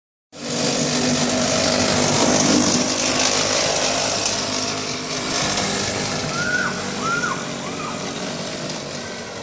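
A go-kart's small petrol engine running as the kart drives past: loudest as it comes close about two to three seconds in, then fading as it pulls away down the track. Three short high chirps sound near the end.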